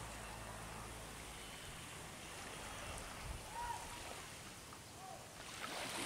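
Faint seaside ambience: soft wash of calm shallow water, with a low steady engine hum from a distant boat that fades out about a second and a half in. A few faint short chirps come later.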